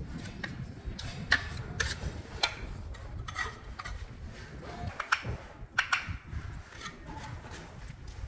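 Hand-tool work on a building site: irregular sharp taps and knocks with scraping, over a steady low rumble.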